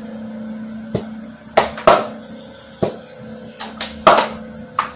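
About half a dozen sharp clicks and knocks from a plastic cooking-oil bottle being handled and opened over an empty nonstick kadai, as oil is poured into it. A steady low hum runs underneath.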